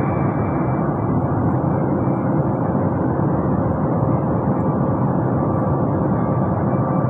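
Steady engine and airflow noise inside a jet airliner's passenger cabin in flight: an even, unchanging rush with a faint steady whine.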